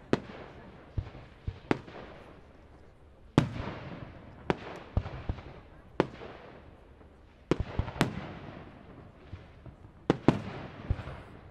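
Aerial firework shells bursting in an irregular run of about a dozen sharp bangs, each trailing off in echo. The loudest bangs come about three and a half seconds in and again at about eight seconds.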